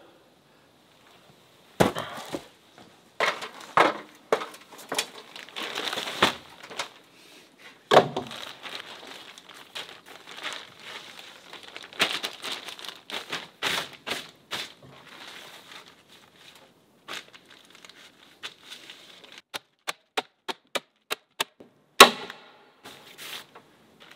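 Plastic compost bags crinkling and rustling as they are handled and spread over wooden roof planks, with sharp clicks and knocks from stapling them down. Near the end a quick run of clicks at about four a second, then one loud sharp snap.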